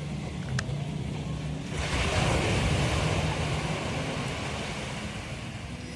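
Ocean surf on a beach: a wave breaks about two seconds in and washes up the shore, then slowly fades. A low engine hum sits underneath at the start.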